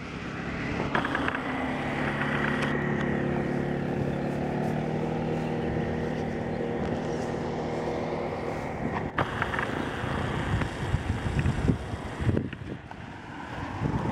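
An engine running with a steady, even hum that holds one pitch for several seconds, then fades out about nine seconds in, leaving an uneven rumbling noise.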